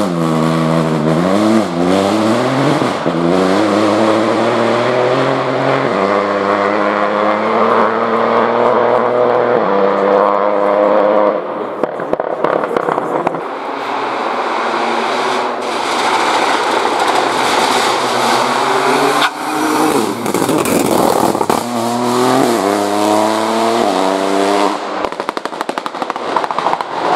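Peugeot 208 Rally4 rally cars' turbocharged three-cylinder engines accelerating hard through the gears, the pitch climbing and dropping back with each upshift, in several passes. Between passes there are sharp pops and bangs typical of a rally car's exhaust backfiring on lift-off.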